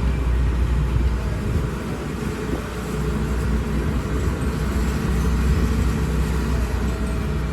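Hydraulic excavator's diesel engine running steadily, a deep low hum.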